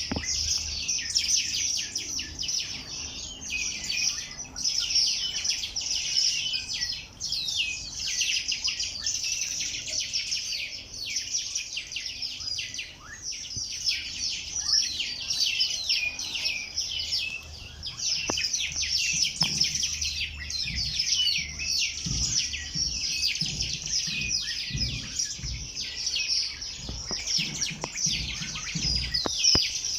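A chorus of many small birds chirping and singing at once: a dense, continuous mix of quick, high, downward-sweeping chirps.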